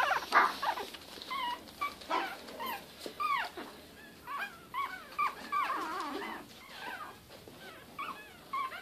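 Shih Tzu puppies, nearly five weeks old, whimpering: many short high whines that bend up and down, several a second, with some overlapping from more than one puppy.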